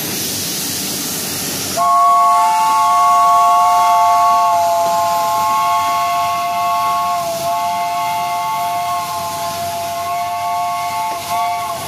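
Pacific-type steam locomotive No. 850 hissing steam, then sounding its chime steam whistle, a chord of three tones held steady for about ten seconds as the train pulls away. The whistle wavers briefly near the end and cuts off.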